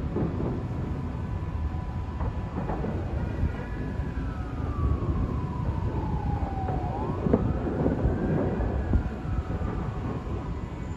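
A distant emergency-vehicle siren wailing slowly, gliding down in pitch for about three seconds, rising again, then falling near the end, over a steady low rumble of city noise.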